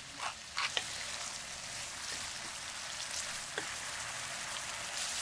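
Pieces of pork frying in hot vegetable oil in a pan: a steady sizzle with a few sharp crackles and pops, several in the first second and one more a little after halfway.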